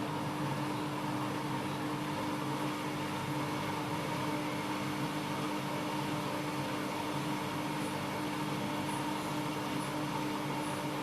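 Siemens iQ washing machine running with a steady, even hum: a constant mid-pitched tone over a wash of motor noise, unchanging throughout.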